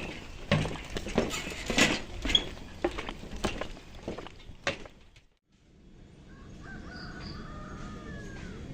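Irregular sharp cracks and snaps for about five seconds. Then, after a brief gap, a steady outdoor background with a wavering animal call.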